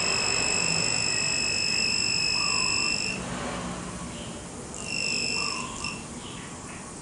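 Piezo buzzer of a non-contact voltage tester sounding a steady high-pitched tone for about three seconds, then a shorter beep around five seconds in and a brief chirp after it, as the tester picks up live voltage.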